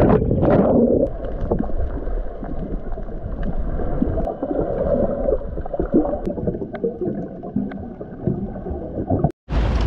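A splash as the camera plunges into the sea, then the muffled rush and gurgle of water and bubbles heard underwater, dull and low with almost nothing bright in it. The sound cuts out briefly near the end.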